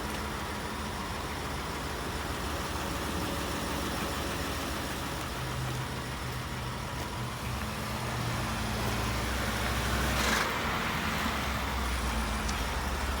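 Ford F-150's 5.0-litre V8 engine running steadily, with a brief rushing noise about ten seconds in.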